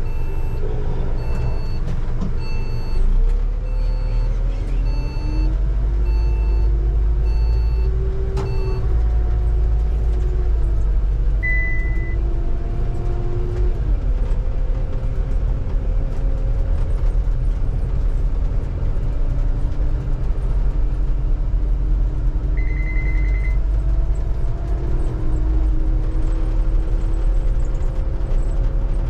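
London bus heard from the driver's cab as it pulls away and drives on, with a low engine rumble and a drivetrain whine that rises and falls with speed. Repeated beeping sounds in the first few seconds, with single short beeps about 12 and 23 seconds in.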